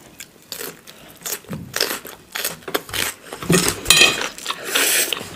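Close-miked eating: instant noodles slurped up and cucumber chewed, in irregular wet smacks and short crunches.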